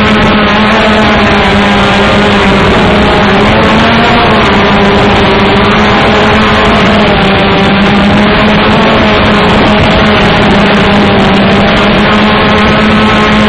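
Multirotor drone's electric motors and propellers buzzing, heard up close from the aircraft carrying the camera: a loud, steady pitched hum with overtones whose pitch wavers slightly as the throttle shifts.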